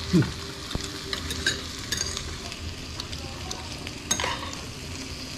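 Marinated chicken galbi sizzling on a hot tabletop griddle, a steady frying hiss with scattered light clicks of metal chopsticks, and a louder crackle about four seconds in.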